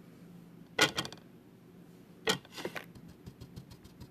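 Small hard clicks and taps of makeup containers and tools being handled while powder is picked up on an applicator. There are two sharper clicks, about a second in and about two seconds in, followed by faint light ticking.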